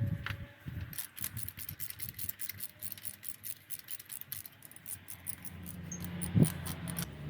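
Ratchet on a 16mm spark plug socket clicking in a rapid, even run as the fourth spark plug is unscrewed from the engine, with a single knock near the end.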